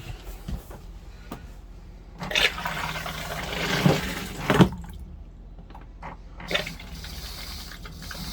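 Foot-pedal RV toilet flushing: water rushes into the bowl for about two and a half seconds, ending with a couple of sharp knocks, and a few small clicks come before and after.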